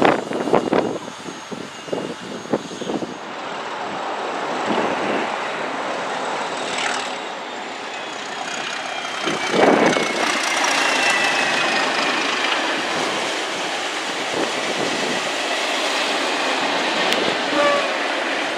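A train passing close by. Rapid clicks of wheels over the rail joints come in the first few seconds, then a steady rush of running noise, loudest about halfway through, with thin high whining tones that slowly fall in pitch.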